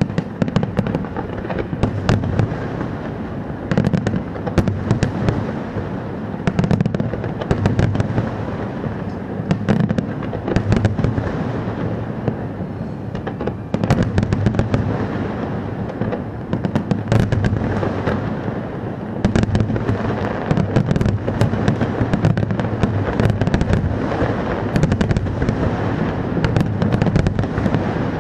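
Fireworks display: shells bursting without pause, many sharp crackles close together over continuous low booming.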